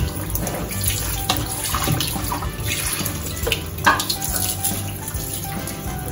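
Kitchen tap running into a bowl in a stainless steel sink as raw chicken pieces are rinsed by hand, with splashing and a few short knocks.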